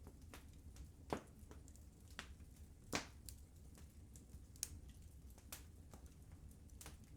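Burning firewood crackling: irregular sharp pops and snaps, two louder ones about a second and three seconds in, over a faint low rumble.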